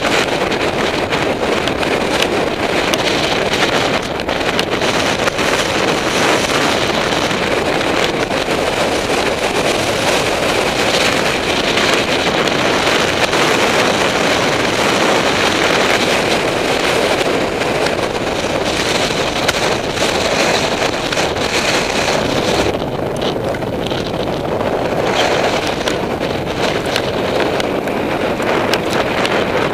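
Mountain bike rolling fast down a rocky trail: tyres crunching over loose stones and gravel with frequent knocks and rattles from the bike, under steady wind buffeting the bike-mounted camera's microphone. The wind hiss eases briefly a little after twenty seconds.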